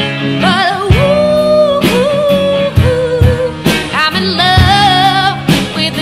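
A woman singing long held notes with vibrato, backed by electric guitar and regular drum hits.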